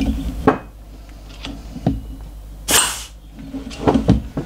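A short, loud hiss of compressed air from an air blow gun pressed into the brake-hose port of an MGB front brake caliper, forcing the stiff piston out of its bore. Several knocks of the metal caliper and piston come before and after the hiss.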